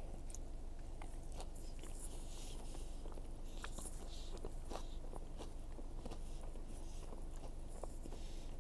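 A person biting into and chewing a double-stacked burger close to the microphone: soft, irregular wet mouth clicks and smacks over a low steady background hum.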